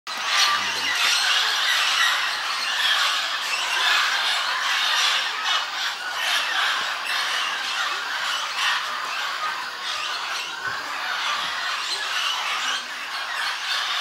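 A large mixed flock of parrots, mainly mealy amazons with some blue-headed parrots, squawking and screeching all together in a continuous, dense chatter.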